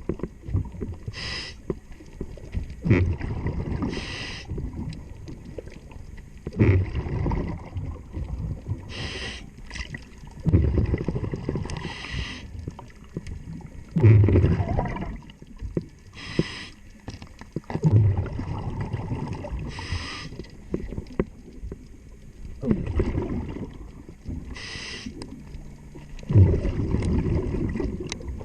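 A diver breathing underwater through a regulator: a short hiss on each inhale, then a longer low rumble of exhaled bubbles, repeating about every four seconds.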